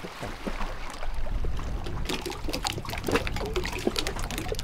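Shallow seawater splashing and sloshing in irregular small splashes around someone wading, over a low rumble.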